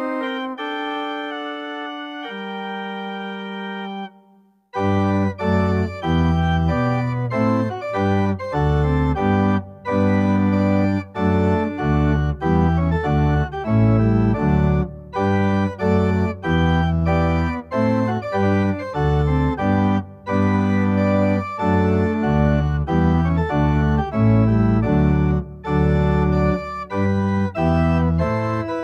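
Church organ playing: softer held chords, a brief break about four seconds in, then louder full chords with deep pedal bass in short detached strokes.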